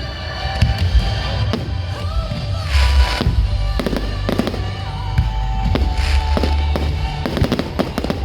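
Fireworks going off: many sharp bangs, with short hissing, crackling bursts about three seconds in and again about six seconds in, over music playing throughout.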